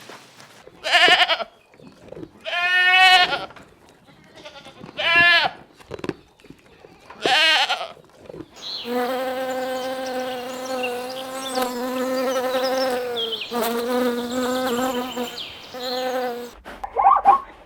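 Goats bleating: four separate wavering bleats about two seconds apart, then a long steady buzzing tone lasting about five seconds with shorter calls after it. Different short calls begin near the end.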